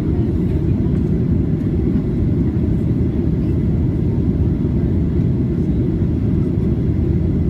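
Steady low rumble of the engines and airflow heard inside the cabin of a Ryanair Boeing 737-800 climbing after takeoff.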